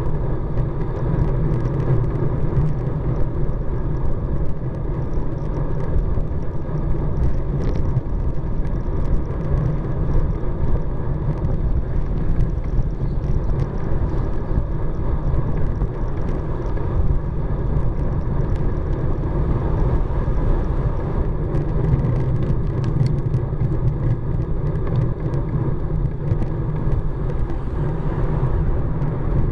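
Steady wind and road noise buffeting a bicycle-mounted camera's microphone while riding along a road, with traffic passing.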